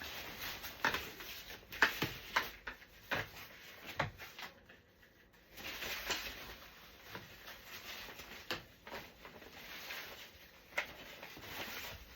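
Parts of a Graco Pack 'n Play playard being handled and fitted together: a string of sharp clicks and knocks, with stretches of rustling in between.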